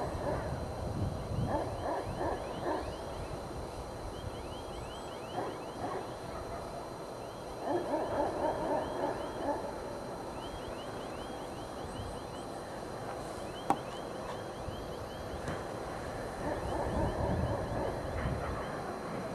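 ChME3 diesel shunting locomotive running at low speed as it approaches, a low rumble underneath. Over it come several louder bursts of rough warbling calls and a short high trilled phrase repeating every few seconds, with one sharp click about 14 seconds in.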